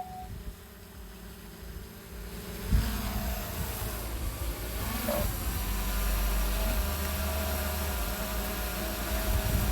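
DJI Phantom 3 Professional quadcopter's motors and propellers buzzing, the pitch shifting a few seconds in, with low wind rumble on the microphone.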